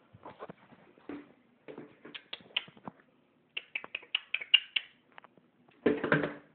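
A small dog's claws clicking and scrabbling against a wooden door and floor in runs of short, sharp ticks, with a louder burst of scuffling near the end.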